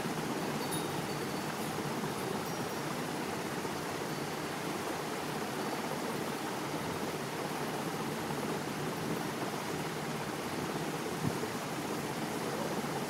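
Steady, even hiss of noise with no voices or tones in it, and one brief click about eleven seconds in.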